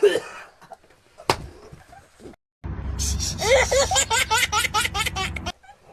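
A person laughing in quick repeated bursts over a low rumble, after a sharp click about a second in.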